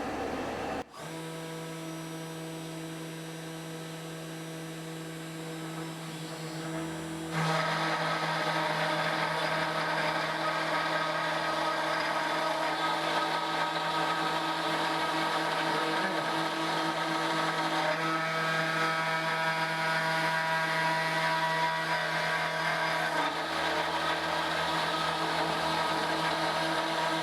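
Desktop CNC spindle running with a steady whine while a 1/8-inch two-flute spiral upcut bit mills the roughing pass of a relief carving in a wood board; about seven seconds in the sound turns louder and fuller as the bit cuts into the wood.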